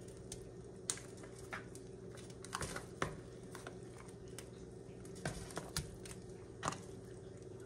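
Raw ground turkey being handled and dropped into an enamelled cast-iron pot: scattered soft taps and a few sharp clicks over a steady low hum.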